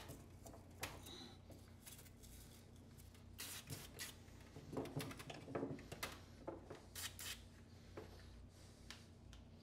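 Faint, scattered plastic clicks and rubbing as gloved hands handle and disconnect the plastic manifold-block fittings and tubing, with the handling noises busiest through the middle, over a low steady hum.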